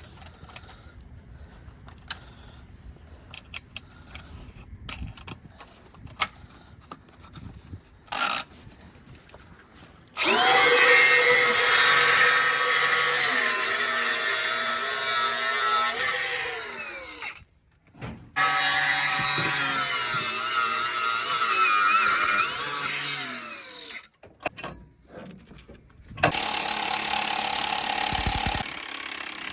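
Milwaukee cordless angle grinder cutting metal in three runs, with faint clanking before them. The first run starts about ten seconds in, spinning up with a rising whine and winding down about seven seconds later. A second run of about six seconds follows, and a third starts near the end.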